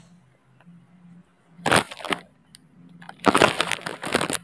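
Large hard-plastic toy car being handled and turned over: two bursts of crackling and clattering, a short one about two seconds in and a longer one near the end.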